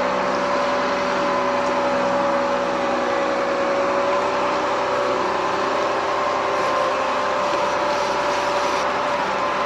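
Changlin 957H wheel loader's diesel engine running steadily, with a steady whine held over the engine note.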